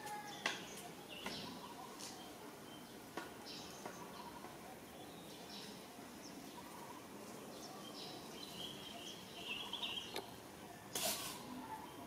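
Faint outdoor ambience with scattered clicks and brief high chirps, a run of chirps about nine seconds in, and a short noisy burst about eleven seconds in.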